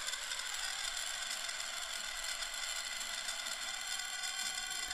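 Granular synth ambience from an Ableton Granulator device: a steady, crispy high texture made of many tiny sample grains played very quickly, sitting above the low end.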